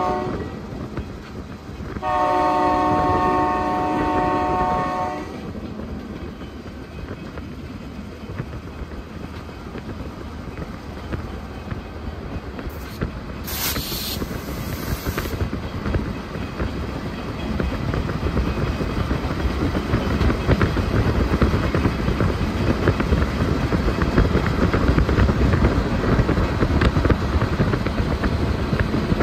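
Diesel locomotive air horn sounding a multi-note chord: a short blast at the start, then a longer blast of about three seconds. After it comes a steady rumble of the moving train and road noise, growing louder toward the end.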